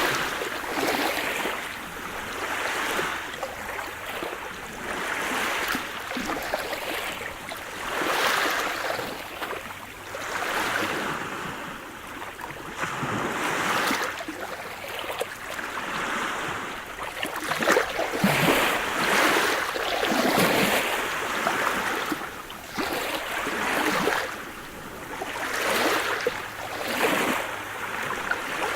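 Sea surf: waves breaking and washing on the shore in a steady series of swells, one every two or three seconds.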